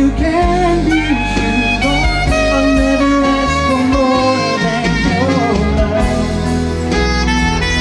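Live band music through a PA system: a male singer singing into a microphone over band accompaniment that includes electric guitar.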